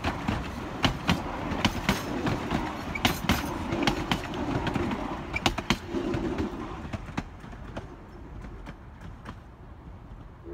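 Narrow-gauge passenger coaches rolling past on steel rails, the wheels clicking over rail joints with a rumble. The clicks thin out and the sound fades about two-thirds of the way through as the last coach goes by.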